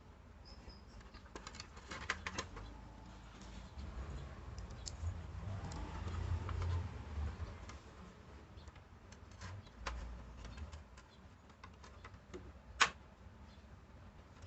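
Scattered light clicks and taps of small objects being handled, over a low rumble, with one sharper, louder click near the end.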